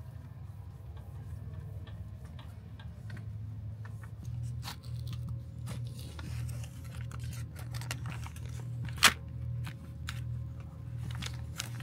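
Foil lid being peeled back from a plastic yogurt cup: light crinkling and small clicks, with one sharp, loud click about nine seconds in. A steady low hum runs underneath.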